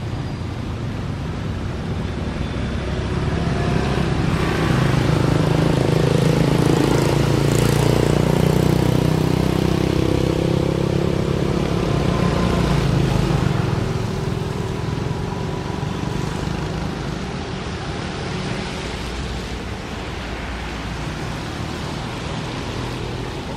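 A motor vehicle passing by over steady outdoor noise. It grows louder about four seconds in and fades after about fourteen seconds.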